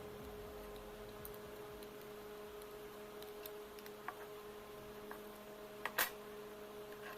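Faint steady hum with a few sharp clicks scattered through it; the loudest is a double click about six seconds in.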